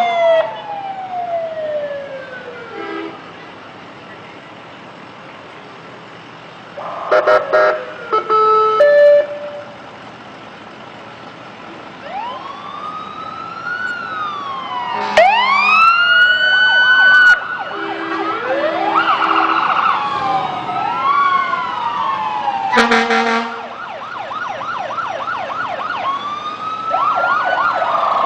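Emergency vehicle sirens passing: wails that rise and fall, several overlapping, with quick yelping stretches near the middle and end. Short horn blasts cut in about seven seconds in and again near 23 seconds.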